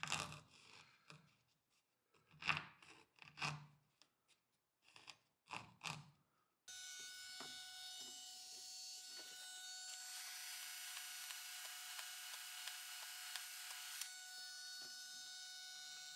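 Fretsaw cutting through a cork disc in a string of separate rasping strokes, with short pauses between them. About six and a half seconds in, the sawing gives way abruptly to a steady buzzing hum with a hiss.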